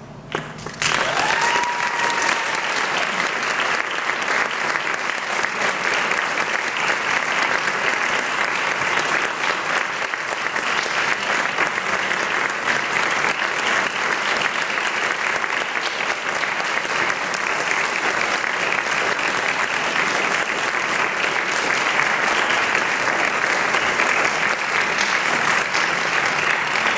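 Audience applauding steadily in a hall. The applause starts suddenly about a second in and keeps on evenly throughout.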